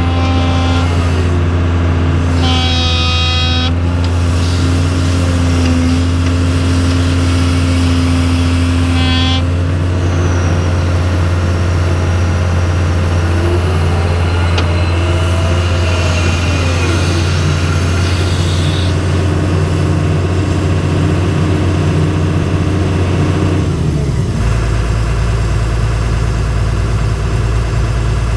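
Cat 315C L excavator's diesel engine running steadily at working throttle, heard from inside the cab, with brief higher-pitched whines in the first ten seconds as the boom and bucket move. About 24 seconds in the engine drops to a lower, idling note.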